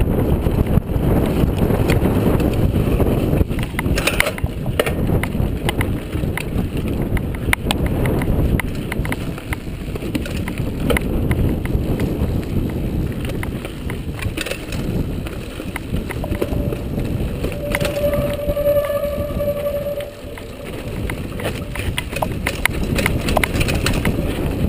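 Mountain bike descending a rough dirt trail at speed: heavy wind buffeting on the mic, tyres on dirt, and the bike rattling and knocking over bumps. A held tone lasts about two seconds, about three-quarters of the way in.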